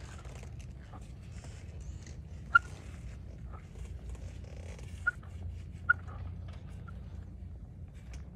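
A hand pressing and smoothing a vinyl graphic decal onto a dirt bike's plastic front number plate, with the paper backing rustling. Three short, sharp squeaks stand out, about two and a half, five and six seconds in.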